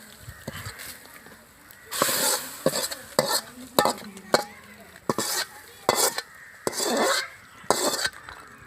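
A spoon scraping and stirring food in a cooking pan, a quiet start and then a series of short scraping strokes.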